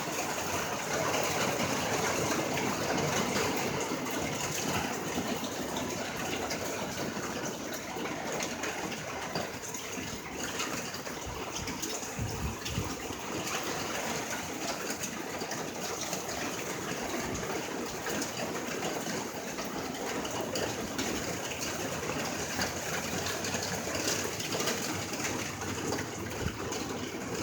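Heavy rain pouring down at night, a steady dense rush of water on street and pavement, with a dull thump a little before the middle.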